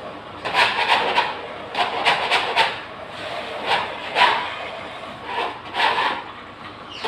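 Old wallpaper backing being torn and scraped off a plaster wall by hand: a run of irregular ripping, rasping strokes, several in quick clusters near the start and then spaced out.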